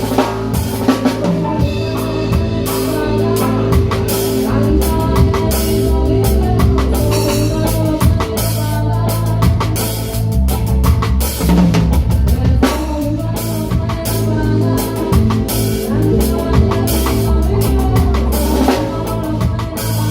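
Reggae band playing live with the drum kit up close and loudest: kick drum, snare rimshots and cymbals over a steady bass line and held chords.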